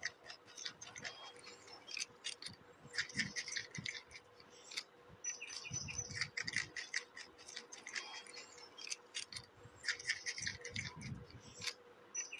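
Groundhog chewing a piece of orange food up close: quick crunching clicks and wet smacking, coming in bunches with short pauses. A faint steady hum runs underneath.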